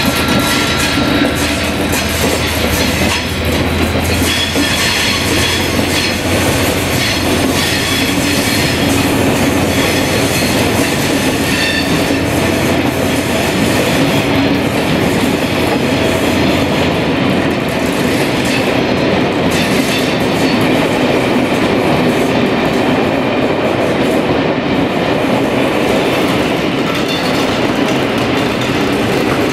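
Rake of Pullman coaches rolling steadily past, the steady running noise of their wheels and bogies on the track. The low engine note of the leading class 47 diesel locomotive fades away over the first few seconds.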